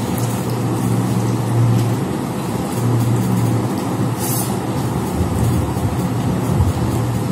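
A steady low hum over a rumbling background noise, dipping briefly about two and five seconds in, with one short sharp click about four seconds in.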